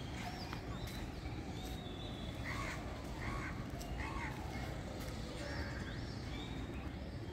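Birds calling outdoors: three louder calls near the middle and short high chirps scattered throughout, over a steady low rumble.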